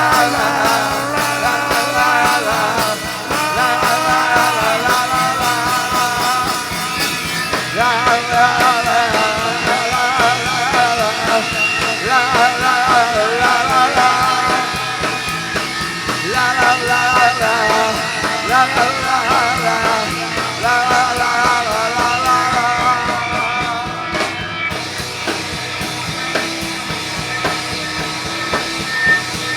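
Loud rock music from a band playing live, with drums and singing.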